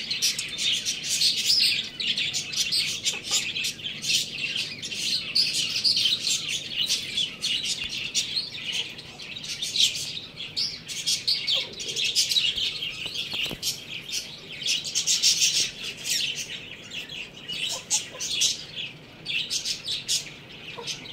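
A dense chorus of many small birds chirping rapidly and without pause, all high-pitched.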